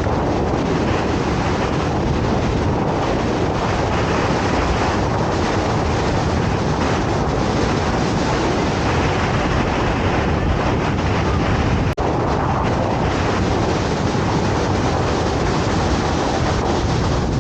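The steady rush of Takakkaw Falls, a large waterfall, as one continuous even roar of falling water. The sound cuts out for an instant about two-thirds of the way through.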